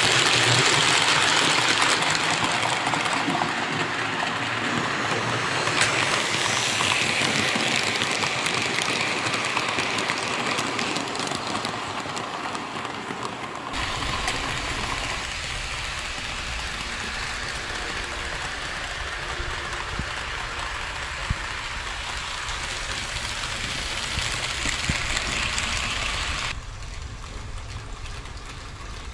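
HO-scale model train, a Roco Renfe Class 307 diesel locomotive hauling tank wagons, running on the layout track: a steady rolling rattle and hiss of wheels on rail, loudest in the first seconds as it passes close by. The sound changes abruptly about halfway through, when a low rumble comes in, and drops in level a few seconds before the end.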